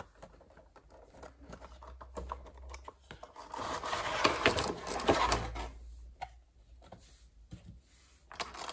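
A cardboard Funko Pop box and its clear plastic insert being handled and opened: light clicks and rustling, with a louder stretch of scraping and crinkling around the middle as the plastic tray comes out of the box.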